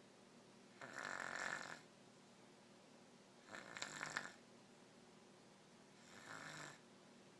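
Snoring: three snores, each a second or less long, coming about every two and a half seconds.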